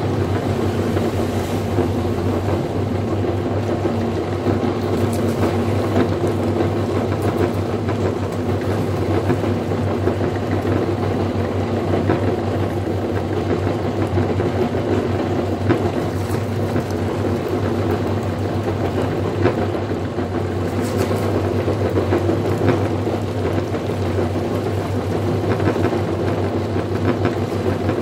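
Electric meat grinder running with a steady motor hum while it grinds leafy greens, with a few faint clicks.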